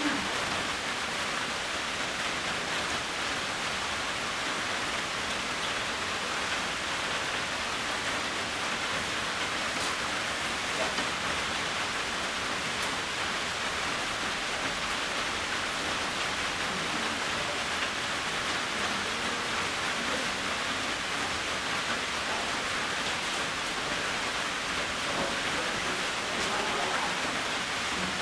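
Steady rain, an even, unbroken hiss.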